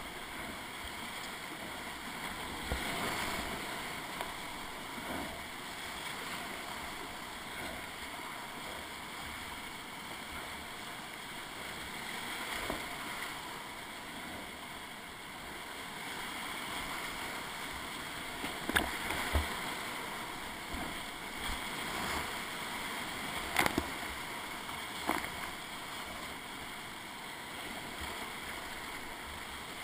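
Steady rush of whitewater rapids heard up close from a kayak, with paddle strokes splashing through it. A few sharp slaps stand out a little past halfway, the loudest two about five seconds apart.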